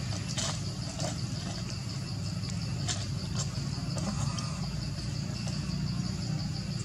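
Insects trilling in a high, steady, slightly pulsing drone over a low steady rumble, with a few faint clicks.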